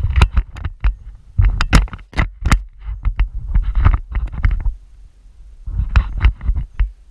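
Close, irregular thumps, knocks and rustling right at the camera microphone, with sharp clicks and scrapes and a low rumble under them: the sound of the camera rig being jostled as the player moves and handles gear.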